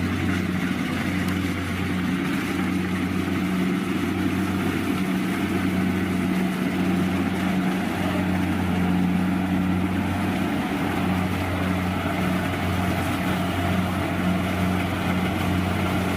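Rice combine harvester running steadily, a loud, even engine hum with a strong low drone.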